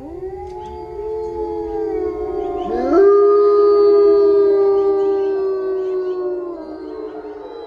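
A chorus of wolves howling, several voices at different pitches rising and overlapping. About three seconds in, one howl sweeps sharply up and holds a long steady note, the loudest part, before the chorus fades near the end.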